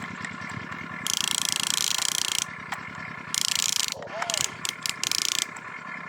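Small electric gear motors of a toy RC construction vehicle running in short bursts: a high whir starts about a second in, stops and starts again, then breaks into several quick stop-start pulses, over a steady low hum.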